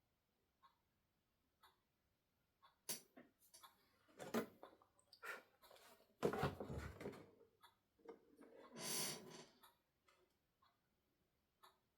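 A wall clock ticking about once a second, with louder irregular rustling and clattering handling noises in the middle.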